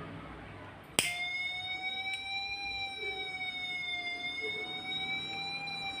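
A sharp click about a second in, then an Arduino-driven loudspeaker sounds a steady, buzzy electronic alarm tone whose pitch drifts slowly up and down: a DIY fire-alarm circuit set off by a lighter flame held at its sensor.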